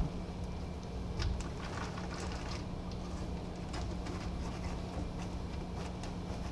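Hands shifting loose substrate and decorations inside a terrarium: a scatter of small rustles and light clicks over a steady low hum.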